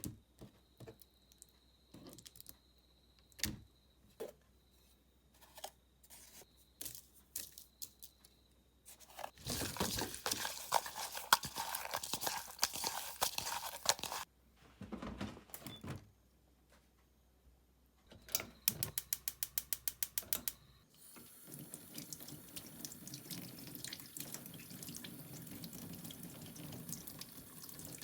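Kitchen sink sounds: tap water running and splashing, with scattered clicks and knocks of handling. A quick run of even clicks comes about two-thirds of the way through.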